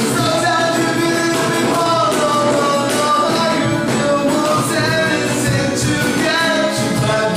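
Acoustic band playing a rock song: strummed acoustic guitars, acoustic bass and a cajón keeping a steady beat, with a voice singing over them.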